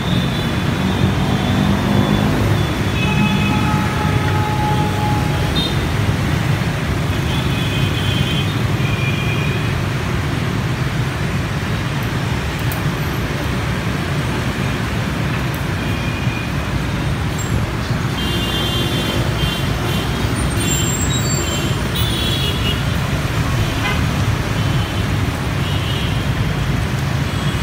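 Dense street traffic, mostly motorbikes and scooters with cars, giving a steady engine and tyre rumble. Frequent short horn beeps come through it, most densely about two-thirds of the way through.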